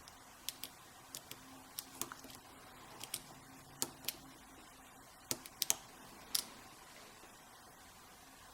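Small sharp clicks of lock picks working the pins of a Schlage Primus high-security lock cylinder, about fifteen irregular ticks over the first six and a half seconds, while the pins are being reset.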